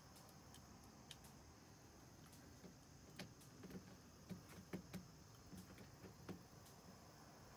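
Faint, near-silent outdoor ambience: a steady high-pitched insect drone throughout, with a handful of soft, irregular taps and clicks in the middle seconds.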